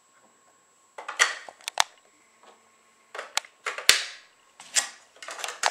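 AA batteries being fitted into the plastic battery compartment of a SureFlap microchip cat flap: about half a dozen sharp plastic clicks and knocks, a few at a time with short pauses between.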